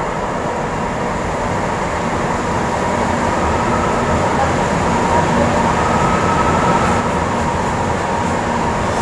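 Metro train running loud and steady at an elevated station platform, swelling to its loudest around the middle, with a faint steady whine.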